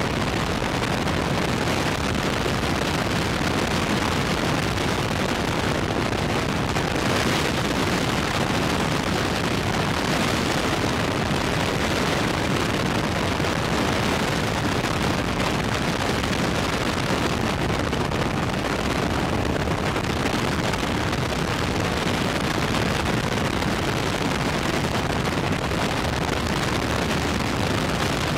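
Steady, loud wind noise on the microphone of an aircraft in flight, with engine noise mixed into it and no distinct engine tone standing out.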